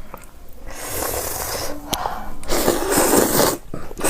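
Close-up eating noises: two long, noisy slurps of noodles, one about a second in and a louder one about two and a half seconds in.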